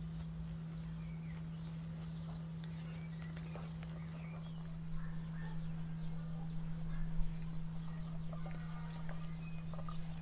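Countryside ambience: small birds singing short rapid trills twice, and hens clucking in the second half, over a steady low hum. A single sharp click about 7 seconds in.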